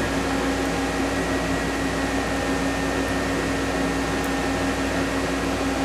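Steady machine hum with a constant low tone and no distinct knocks or clicks.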